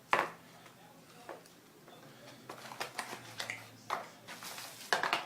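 Tablet packaging being handled: scattered clicks and rustles of the box contents as accessories are lifted out, with a sharp knock at the start and a longer rustle near the end.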